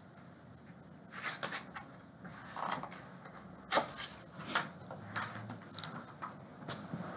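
Handling noises of a hardcover picture book being picked up and opened: irregular rustles, taps and clicks, with a sharp knock about four seconds in.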